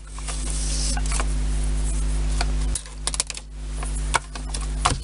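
Hands smoothing and pressing clear plastic film flat over a paper plan on a wooden building board: a rustling rub broken by scattered light taps and clicks.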